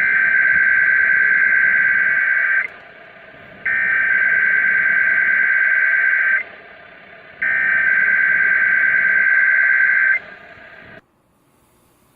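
Emergency Alert System SAME header, the digital data tones that open a Required Monthly Test: three bursts of warbling data tones, each about two and a half seconds long with about a second between them. It is heard over a radio, with hiss in the gaps, and cuts off about eleven seconds in.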